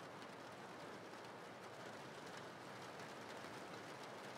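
Steady rain: an even hiss with a faint patter of drops.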